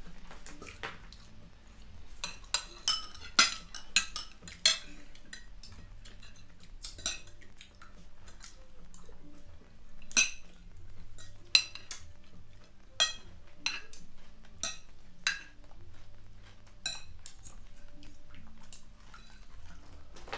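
Forks and spoons clinking against plates as several people eat, in irregular sharp clinks: a quick flurry a few seconds in, then single clinks every second or so.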